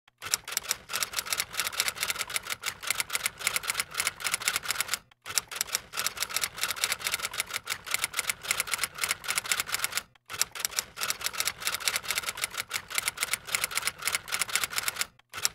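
Typewriter keystroke sound effect: rapid, even clacking of keys as text is typed out, broken by two short pauses about five and ten seconds in.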